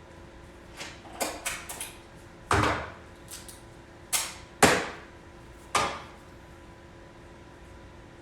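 Hand tools being handled: a run of about eight sharp knocks and clinks spread over the first six seconds, the loudest about four and a half seconds in, over a faint steady hum.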